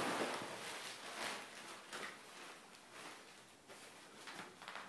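Rustling of plastic packaging and packing material as things are pulled out of a cardboard box, loudest at the start and then in lighter, scattered rustles.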